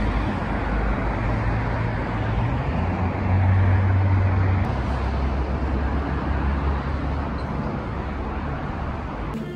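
Road traffic noise, with a passing vehicle's engine hum that swells briefly about three and a half seconds in. It cuts off suddenly near the end.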